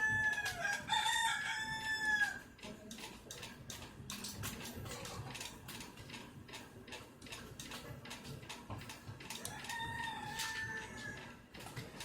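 A rooster crows twice: at the start and again about ten seconds in. Between and under the crows come irregular clicks of a socket ratchet loosening nuts off the battery pack's terminals.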